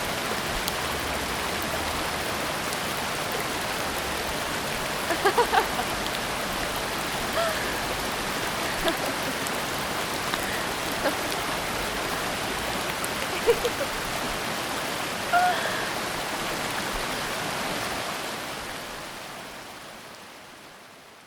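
Steady rushing water noise, like rain or a stream, with a few brief higher sounds in the middle. It fades out gradually over the last few seconds.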